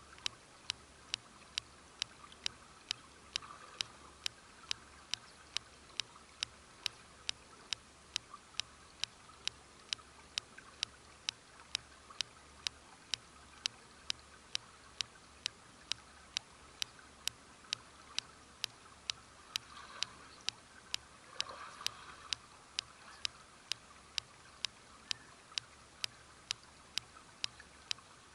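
Steady background clicking, sharp regular clicks about two a second, over a faint steady hiss.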